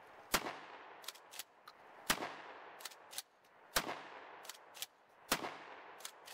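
Franchi pump-action 12-gauge shotgun fired four times, about a second and a half apart. After each shot comes a pair of short mechanical clacks as the slide is racked back and forward to chamber the next shell.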